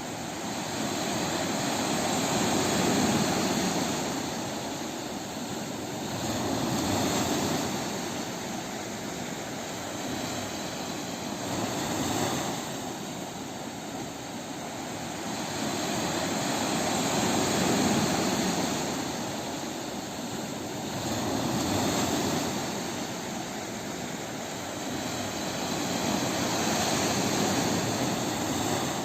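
Ocean waves breaking on a beach, a continuous wash that swells and eases about every four to five seconds as each wave comes in and draws back.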